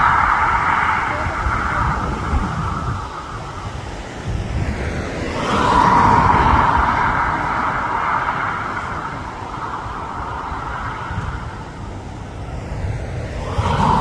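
Road traffic: cars passing one after another, each swelling and fading, about eight seconds apart. Wind buffets the microphone with an uneven low rumble.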